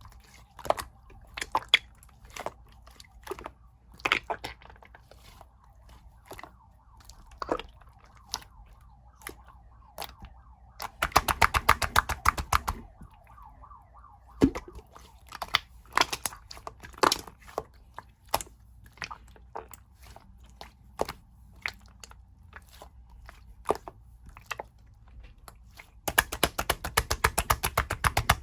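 White milky slime being squeezed and pressed by hand, giving scattered wet clicks and pops, with two runs of rapid crackling pops, about ten a second, near the middle and at the end.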